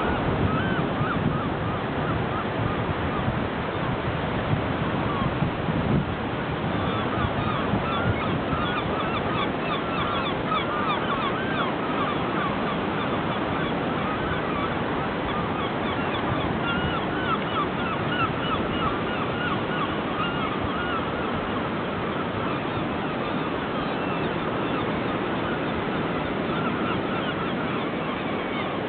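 A flock of gulls calling, with many short cries overlapping and repeating throughout, over a steady rushing background noise.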